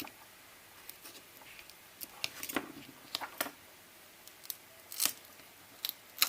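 An opening tool prying and scraping at the glued-down battery of a first-generation iPod Nano, lifting it off its adhesive. The sound is a series of small, irregular clicks and scrapes, the loudest two coming near the end.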